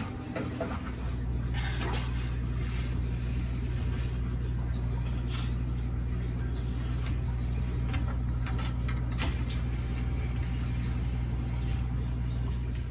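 A steady low mechanical hum, like a pump or motor running, that starts about a second in and stops near the end, with a few faint clicks over it.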